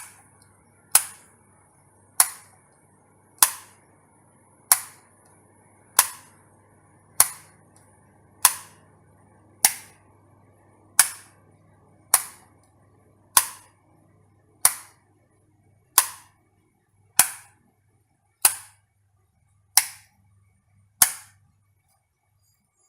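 Electric light switch clicking on and off, one sharp click about every 1.2 seconds, about eighteen in all, stopping near the end. A faint low hum sits underneath.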